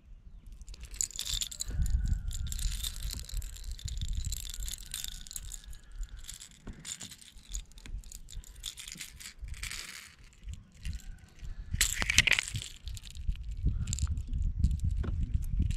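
Small metallic clicks and rattles of a topwater popper lure's treble hooks and split rings being handled, with a low rumble of handling noise. A louder, brief rush of sound comes about twelve seconds in.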